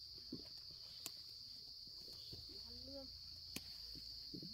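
Insects trilling in a steady, high-pitched chorus, with a few sharp clicks over it.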